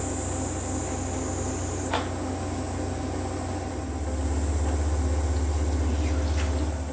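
Hair dryer blowing steadily, with a click about two seconds in where its high whine shifts. It gets louder about four seconds in and drops away right at the end.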